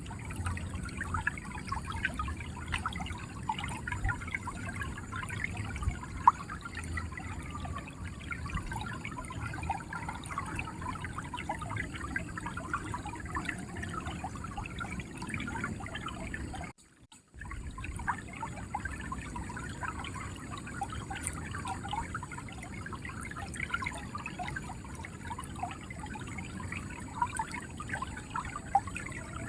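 Shallow river water flowing and gurgling steadily, full of small bubbling splashes. A little past halfway the sound cuts out for about half a second, then the flow resumes.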